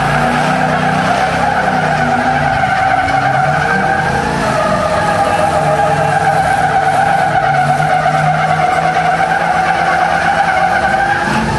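Two Ford pickup trucks pulling against each other in a tug-of-war. Their tires spin and squeal steadily on the pavement over the engines running at high revs.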